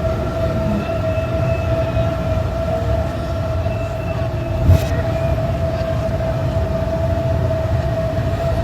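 A steady mechanical hum, one held tone over a low rumble, with a single brief thump about halfway through.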